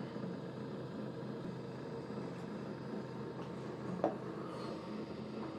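Electric lapidary polishing wheel spinning, its motor giving a steady hum, with one brief sound about four seconds in.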